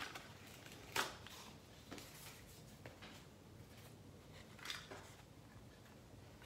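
Quiet handling of a Hot Wheels blister pack being opened: a sharp plastic click about a second in, a few faint ticks, and a brief rustle near the five-second mark.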